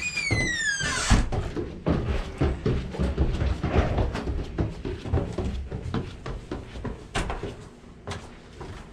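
Heavy footsteps thumping up a staircase, many uneven steps in a row. A single squeak falls in pitch within the first second.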